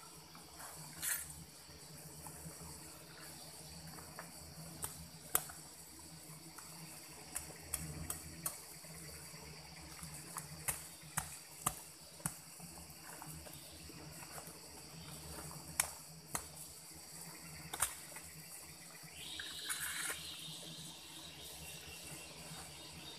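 Hand hoe chopping into packed earth: about a dozen sharp, irregular strikes and scrapes of the blade in the soil. A steady insect buzz runs underneath.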